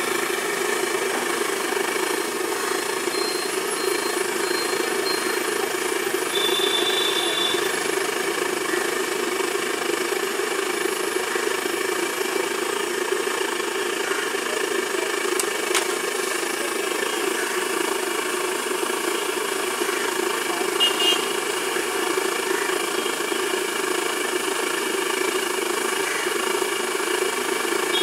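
Steady roaring din of a roadside frying stall: a large wok of hot oil bubbling as banana slices fry, mixed with street traffic. Brief high beeps sound about 7 and 21 seconds in.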